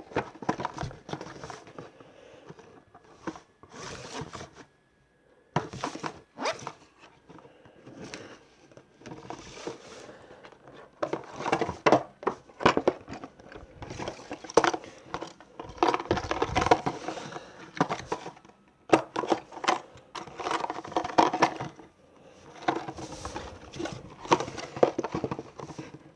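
Plastic building-brick toy pieces and their packaging handled by hand: irregular rattling, clicking, scraping and crinkling in bursts with short pauses.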